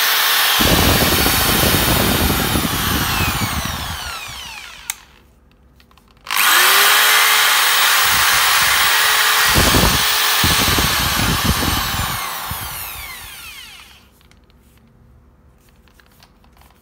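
Metabo BE 650 corded electric drill running unloaded, trigger released about four seconds in so the motor winds down with a falling whine. It starts again suddenly a little after six seconds, runs, and winds down again to a stop near fourteen seconds.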